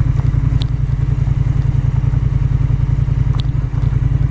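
Honda Rebel 1100's parallel-twin engine running steadily with an even low throb, with two faint light clicks.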